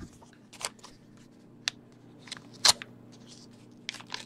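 Paper envelopes and a pair of scissors being handled, with a few separate short rustles and clicks, the loudest about halfway through. Near the end the scissors begin cutting open the edge of a paper envelope.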